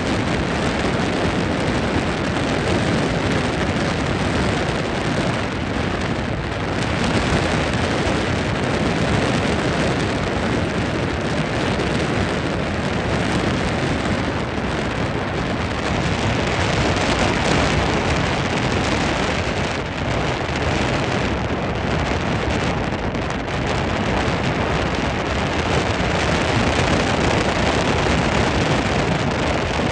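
Speed boat under way: a steady rush of wind and water noise, with no clear engine note standing out.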